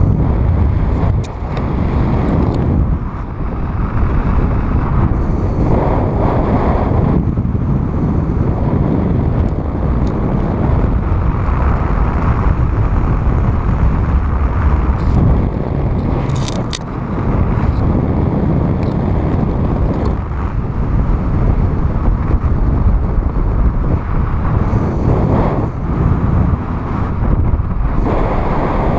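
Wind rushing over the microphone of a camera carried by a paraglider pilot in flight, a loud low rumble that swells and dips in gusts. About halfway through there is a brief high click.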